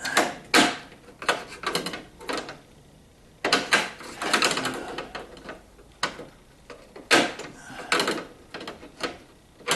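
Irregular clicks, knocks and short rattles of hand tools and small metal parts being handled, as a screwdriver is picked up and set to the light bracket's screws.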